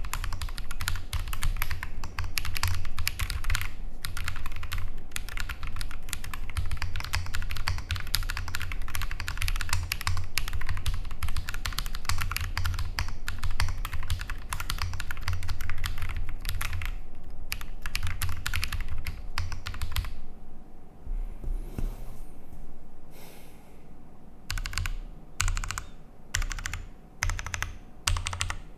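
Typing on a gasket-mounted Bear 65 Alice-layout mechanical keyboard with lubed Holy Panda tactile switches on a polycarbonate plate with Poron foam. It runs as a fast, unbroken stream of keystrokes for about twenty seconds, then pauses briefly, then comes in shorter bursts of keys with gaps between them.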